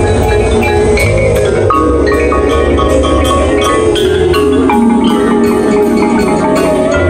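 Indoor percussion ensemble playing: marimbas and vibraphones run rapid mallet notes over sustained low electric bass guitar notes.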